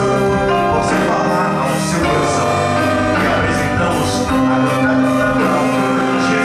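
Choir and small orchestra with violins, saxophones and electric guitar performing live, playing held chords that change every second or two.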